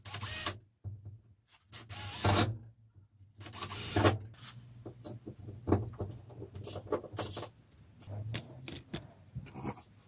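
Cordless drill running in three short bursts against a ceiling panel in the first four seconds, then a string of clicks and knocks as parts are handled and fitted.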